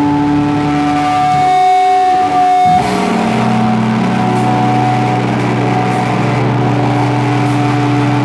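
Slowcore / noise rock band playing live: electric guitars holding long, sustained chords that change to a new, lower chord about three seconds in.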